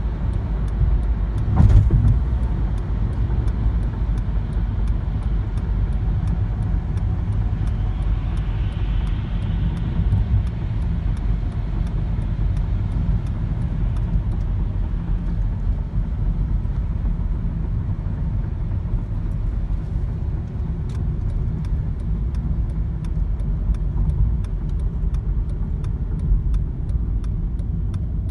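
Steady low rumble of a car on the move, heard from inside the cabin: engine and tyre noise on wet, slushy road. A brief louder bump comes about two seconds in.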